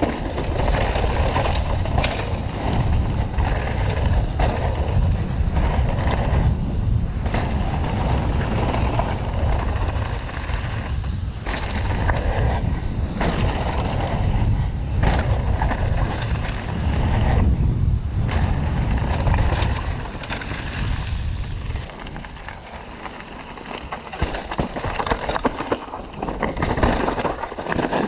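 Mountain bike descending a rough downhill trail: wind rumbling on the microphone, tyres running over dirt and rock, and frequent rattles and knocks from the bike. The wind rumble eases for a few seconds about 22 seconds in, then picks up again.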